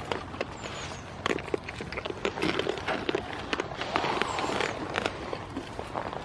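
Goats crowding close and nibbling treats from a hand: irregular crackling clicks and rustles, with a louder rustle about four seconds in.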